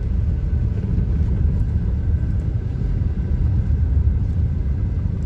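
Steady low rumble of a car's engine and tyres heard from inside the cabin, the car going down a steep mountain road in low gear.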